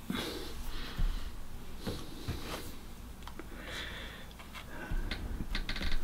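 Soft breaths and sniffs with a few small clicks and taps from hands working on a framed painting, including a quick run of clicks near the end, over a low room hum.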